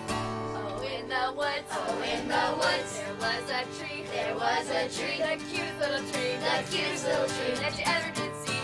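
Acoustic guitar strumming, with singing joining in about a second in.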